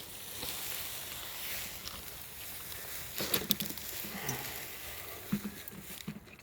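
Rustling and crackling, with a cluster of sharp clicks about three seconds in.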